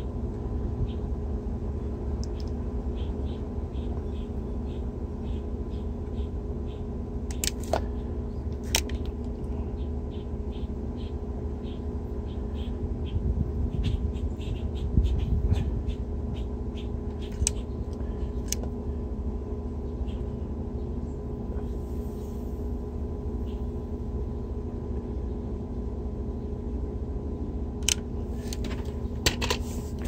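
Steady electrical hum with scattered faint crackling ticks while a wire splice is soldered with a pistol-grip soldering gun, and a few sharper clicks.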